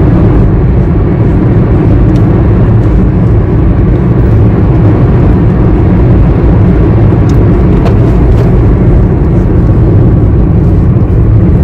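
Steady low road rumble inside a moving car's cabin, with a couple of faint ticks about two-thirds of the way through.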